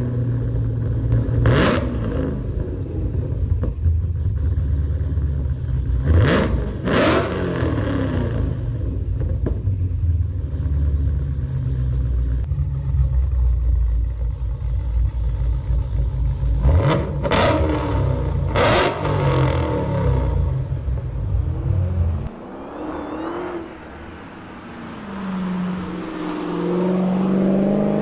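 Dodge Challenger SRT's supercharged V8 exhaust idling with a deep rumble, blipped in several quick revs. Near the end the rumble drops away and a long rising rev follows.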